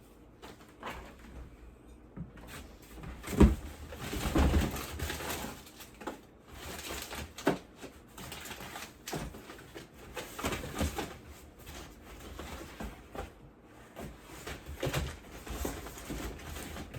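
Packaging being handled: irregular knocks and short rustles of boxes and wrapping, with a sharp knock about three and a half seconds in.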